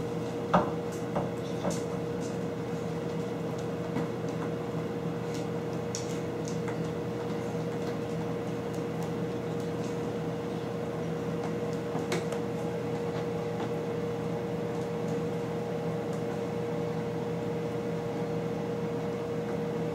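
Steady indoor machine hum, like an appliance or fan running, with a constant pitched tone over a lower hum, and a few faint light clicks and taps now and then.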